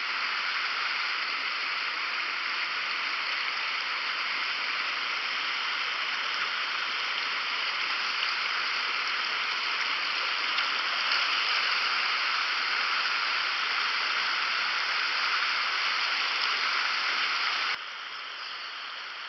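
Creek water rushing and splashing over rocks in a shallow riffle, a steady hiss that drops to a quieter flow near the end.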